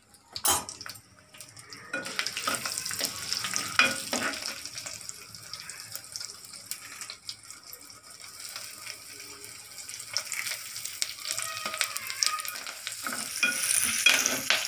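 Ghee sizzling in a terracotta pot as a tempering of dried red chillies and small onions fries, with a steel spoon scraping and clinking against the clay while stirring. The sizzle starts about two seconds in and gets louder near the end.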